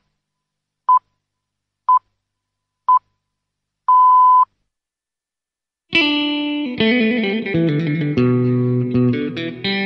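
Radio hourly time signal: short high beeps a second apart, then a longer final beep marking the hour. A little past halfway, guitar music with electric guitar starts.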